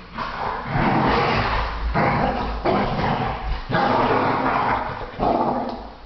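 Two pit bulls play-fighting, growling at each other in about four long, loud bursts.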